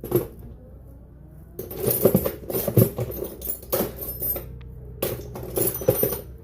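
Metal tools and parts clinking and clattering as they are handled: a single click at the start, then a run of sharp knocks and clinks from about one and a half seconds in, and another burst near the end.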